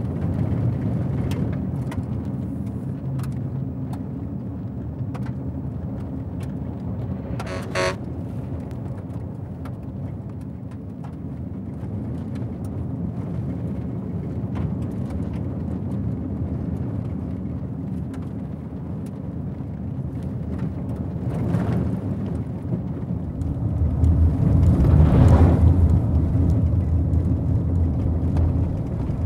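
Car engine and road noise heard from inside the cabin while driving: a steady low rumble with small rattles and clicks. A short high tone sounds about eight seconds in, and the rumble grows louder for a few seconds near the end.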